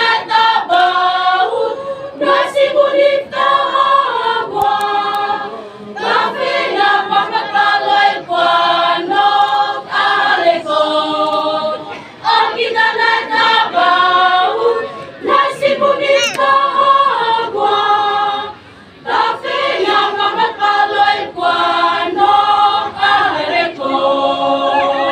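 A choir of women singing a song in parts, possibly without instruments, in phrases separated by brief pauses.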